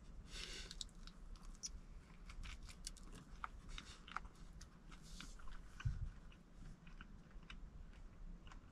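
Close-up biting and chewing of avocado toast made on an everything bagel, a run of short crisp crunches and clicks. One dull thump about six seconds in.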